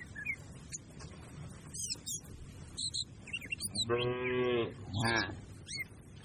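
A cow lowing in two short calls about four seconds in, the first longer than the second, while small birds chirp throughout.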